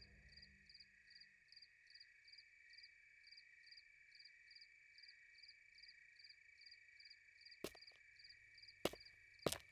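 Faint night chorus: a steady high trill with a chirp repeating about three times a second, and a few sharp clicks near the end.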